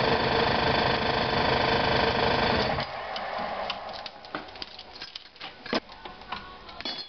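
Power tool running steadily as it spins the threaded rod of a coil spring compressor to back it off the strut's spring. It stops about three seconds in, followed by light metal clicks and clinks as the compressor is handled.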